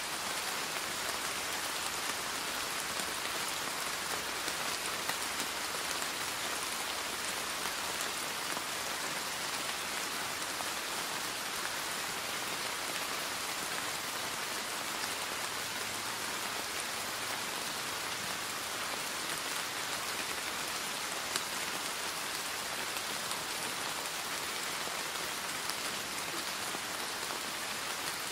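Steady rain falling on leaves: an even hiss with scattered ticks of single drops.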